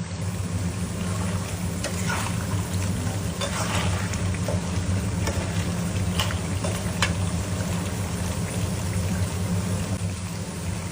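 Food frying in a pan with a steady sizzle, and a few sharp clicks of a utensil at irregular moments.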